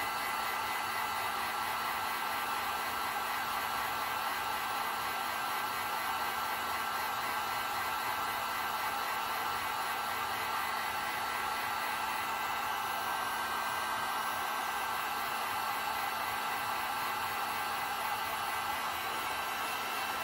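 Two-stage electric heat gun running steadily on its lower setting, blowing hot air to soften PVC pipe: an even rush of air with a faint steady whine.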